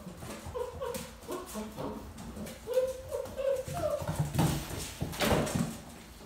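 Dogo Argentino puppies whining and yipping in short squeals as they play, with claws scrabbling and clicking on a vinyl floor. A louder scuffle comes near the end.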